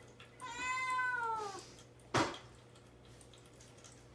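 A Munchkin kitten shut in a cage gives one long, plaintive meow that rises and then falls, crying to be let out. About two seconds in there is a short sharp knock.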